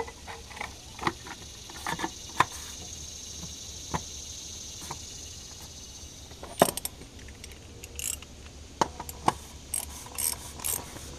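Metal hand tools clicking and clinking against engine parts as a ratchet with socket and extension is handled. The clicks are scattered, with a loud clatter about two-thirds in and a quick run of ratchet clicks near the end.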